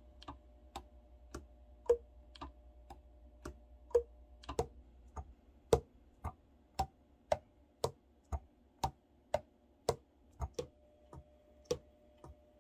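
A steady series of light, sharp clicks, about two a second, over a faint steady hum.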